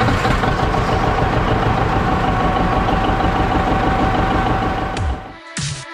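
Farm tractor engine idling steadily while it warms up. Electronic music with heavy beats cuts in near the end.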